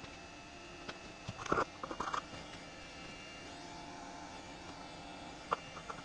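Light knocks and clinks of tools and parts being handled at a milling machine: a short cluster about a second and a half in and a single click near the end, over a faint steady shop hum.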